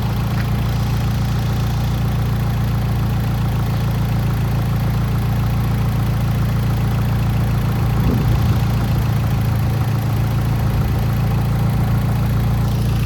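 2008 Mitsubishi Lancer Evolution X's built 4B11T turbocharged four-cylinder idling steadily, with the light tick under investigation, which the owner and the machine shop suspect could be a lifter of the wrong size.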